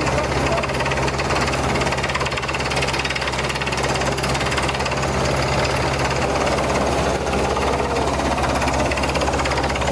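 Beretta T44 drilling rig running as it bores a water well: a steady engine drone with a fast, even rattle from the drilling.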